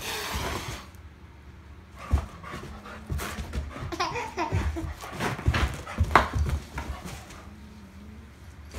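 A cat and a large dog sparring on carpet. It opens with a short hiss, followed by scattered soft thumps of paws and bodies and a few short animal calls from the dog.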